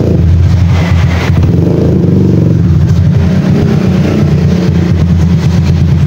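Honda Wave 125's single-cylinder four-stroke engine running through an aftermarket dual-tip muffler, with a few short throttle blips that raise its pitch briefly.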